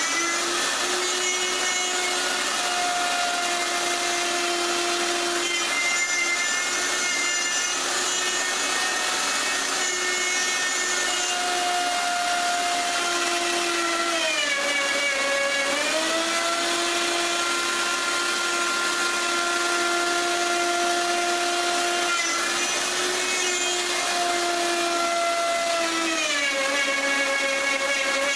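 Electric power tool motor running continuously while working wood, a steady hum whose pitch sags and recovers a few times as the tool takes and eases off load.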